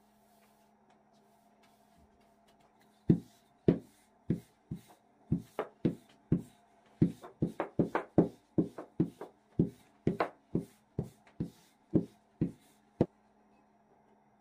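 Wooden rolling pin knocking against a wooden table while a stack of yufka pastry sheets is rolled out: a long, uneven run of sharp knocks, about two to three a second, starting about three seconds in and stopping near the end.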